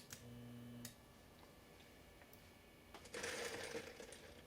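A Hunter R-52 ceiling fan motor hums for under a second, with a click as the speed wire touches on and another as it comes off. From about three seconds in there is a rattling, scraping clatter as the stiff, crusty motor is handled and worked to make sure it turns freely.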